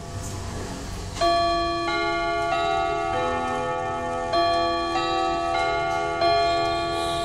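Vedette pendulum wall clock chiming: a melody of struck, ringing notes about every 0.6 s, in phrases with short pauses. The chime is set off as the minute hand is moved round to the hour.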